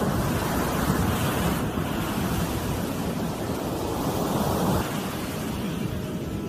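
Ocean surf washing on a shore, with a wave swelling about four seconds in and easing off about a second later, and some wind on the microphone.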